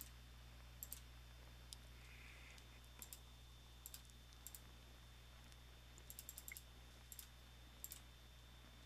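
Faint computer mouse clicks, mostly in quick pairs, spread through, with a rapid run of clicks about six seconds in. A steady low electrical hum runs underneath.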